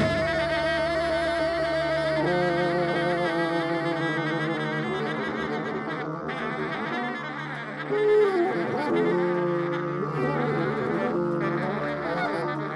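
Background music: a slow melody of long held notes over a sustained low tone, without a drumbeat.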